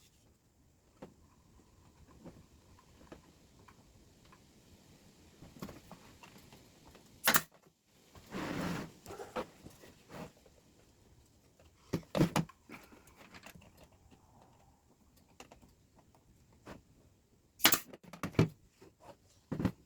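A few scattered sharp knocks and clicks of thin wooden fence-picket boards being handled and fitted together, with a short scraping rustle about halfway through.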